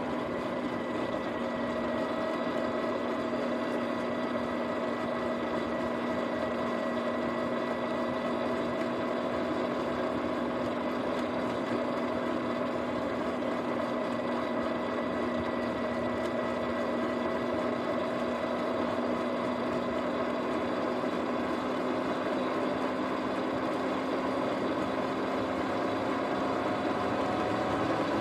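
Sur-Ron X electric dirt bike riding at a steady road speed: a steady whine from the electric motor and drivetrain over rushing road and wind noise, the pitch rising a little near the end as it speeds up.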